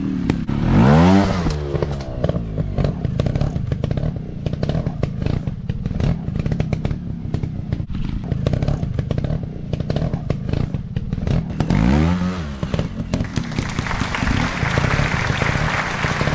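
Dirt bike engines running rough over uneven ground, with two revs rising and falling, one near the start and one about three-quarters through, amid constant rattling and knocking.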